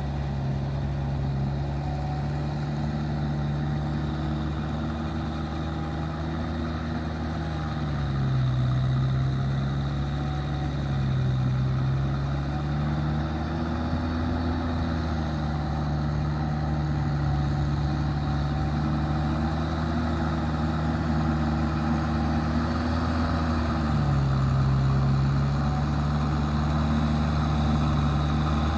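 Tractor engine running steadily while plowing, its pitch sagging briefly as it labours, twice about a third of the way in and once near the end.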